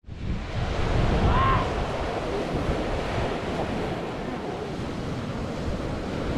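Surf breaking over the reef and onto the beach, a steady wash of waves, with wind rumbling on the microphone.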